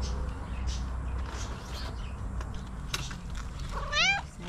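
Tuxedo cat giving one short meow that rises and falls in pitch near the end, a hungry cat asking for the breakfast it has just been promised. Before it there is only a faint background hum with a few light clicks.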